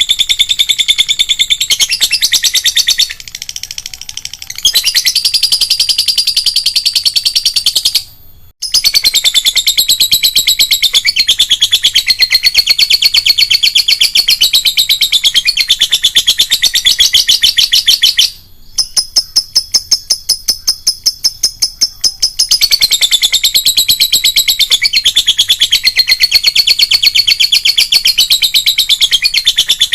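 Lovebird's long, rapid, high-pitched chattering song (ngekek), with a short break about eight seconds in and a softer stretch of fast, even ticking for about four seconds past the middle.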